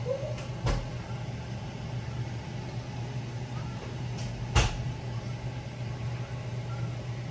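Steady low machine hum with two sharp knocks, one just under a second in and a louder one past halfway.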